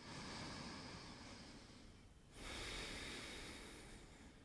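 A person breathing slowly and deeply: two long, soft breaths of about two seconds each.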